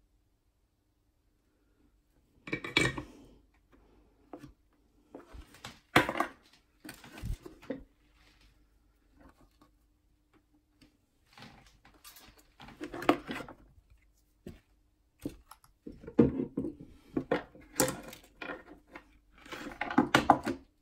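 Small tools and parts being handled on a wooden workbench during soldering work on guitar control wiring: irregular clicks, light knocks and rustling in scattered bursts, over a faint steady hum.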